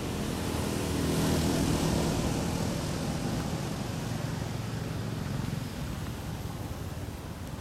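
Drone of a passing motor engine, swelling to its loudest a second or two in and then slowly fading away.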